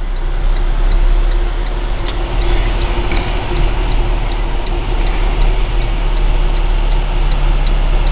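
Cab noise inside a big rig: the diesel engine running with a steady low rumble, with a faint regular ticking about three times a second.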